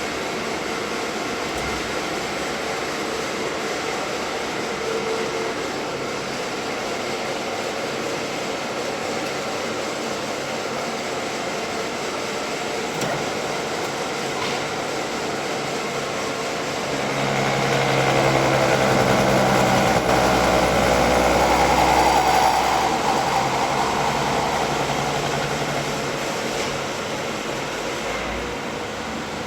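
Milling machine running as it mills the NKT-60 tubing coupling of a high-pressure ball valve: a steady machine hum with several whining tones, growing louder for several seconds past the middle, then easing.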